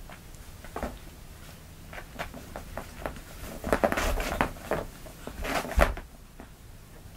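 Two kittens tugging and pouncing on a string toy on a carpeted floor: scattered soft thumps and rustles, with a burst of louder knocks about four seconds in and another just before six seconds.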